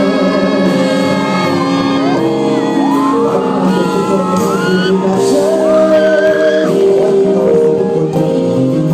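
Live band music amplified through a PA, with a male singer's voice sliding over sustained chords, and shouts from the audience.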